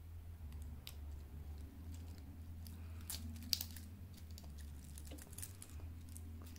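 Stainless steel link bracelet of a Hugo Boss Vela diver watch being flexed and turned in the hands: scattered light clicks and small rattles of the metal links, the sharpest about three and a half seconds in, over a steady low hum.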